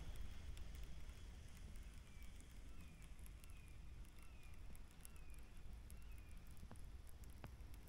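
Quiet outdoor background: a low steady rumble, with a faint series of short, high, falling chirps about two a second through the middle and two light clicks near the end.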